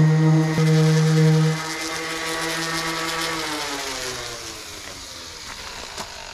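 Electric random orbital sander with a 320-grit pad sanding a polyethylene kayak hull, its motor giving a steady hum. It drops in level about a second and a half in, then is switched off around three seconds in and winds down with a falling pitch.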